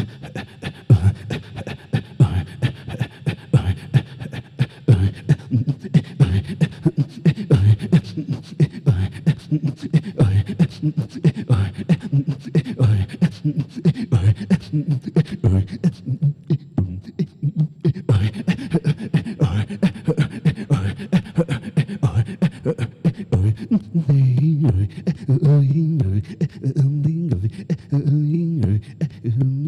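A man's breathing into a handheld microphone, performed as vocal percussion: a fast, rhythmic run of sharp inhales and exhales making up a piece built from breaths. There is a brief pause a little past the middle, and pitched vocal tones join in near the end.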